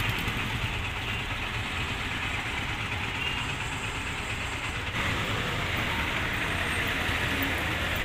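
Steady street traffic noise: a low rumble under an even hiss, with no single vehicle standing out. It shifts slightly about five seconds in.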